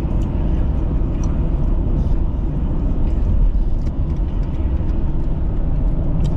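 Car driving on the road: a steady low rumble of engine and tyre noise, with a few faint brief clicks.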